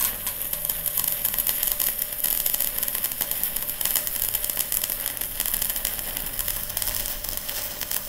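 Stick-welding (SMAW) arc crackling steadily as a 2 mm electrode on 40 amps, DC electrode negative, runs a continuous bead on a 1.5 mm-thick steel tube. The low current lets the thin tube take the weld without burning through.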